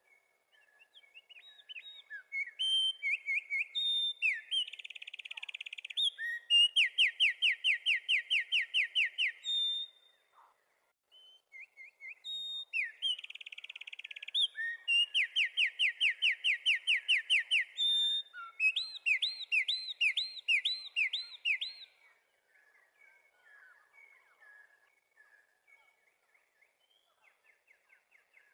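A small songbird singing two long, elaborate songs, each about eight to ten seconds long, separated by a short pause. Each song is made of rapid trills and runs of the same note repeated several times a second. Faint chirps come before, between and after the songs.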